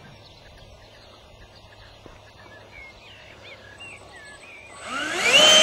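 Near the end, the E-flite Hawk model plane's electric motor and propeller spin up to full throttle for a bungee launch: a whine rises quickly in pitch, then holds steady and loud.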